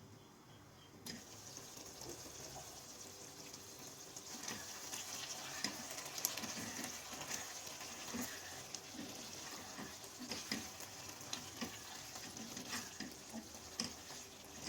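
Food sizzling in hot oil in a pan, a steady hiss that starts suddenly about a second in, with irregular clicks and knocks of a utensil stirring it.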